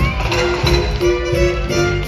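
Upbeat instrumental music from a stage musical's orchestra accompanying a dance number, with a steady beat.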